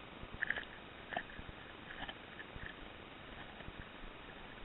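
Footsteps and clothing or gear rustling while walking over snow-covered ground and woody debris, a scatter of soft crunches and knocks over a faint steady hiss, muffled by the camera's waterproof housing.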